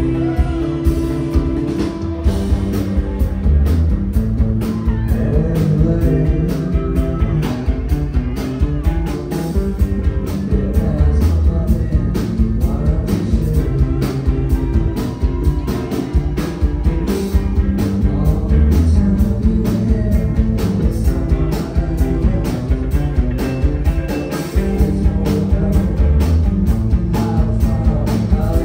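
Live rock band playing: electric guitars and drums with a man singing, loud and continuous with a steady beat.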